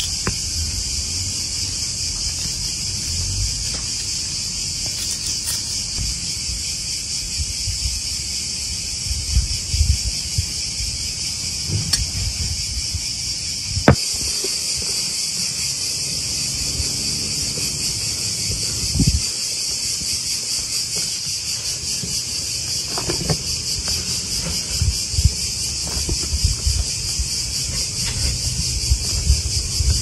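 A steady, high-pitched insect chorus of crickets or cicadas, with scattered soft knocks from vegetables being handled on a wooden board and in a bowl, and a sharp click about 14 seconds in.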